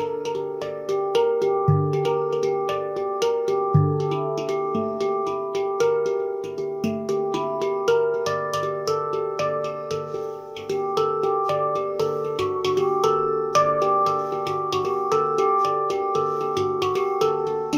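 Taopan Mini handpan tuned to a Dimelodia Extended scale, played with the fingers: a steady stream of quick struck notes ringing over one another. Deep low notes sound about two and four seconds in.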